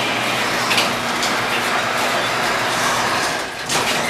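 Chamberlain LiftMaster garage door opener running as the sectional door closes: a steady mechanical rumble and rattle with a constant hum, dipping briefly near the end.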